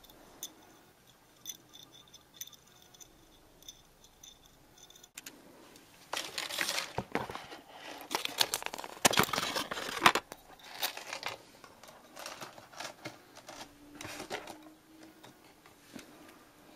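A few faint clicks, then from about six seconds in a run of loud crinkling and crackling as rigid clear plastic packaging is handled, trailing off into smaller rustles.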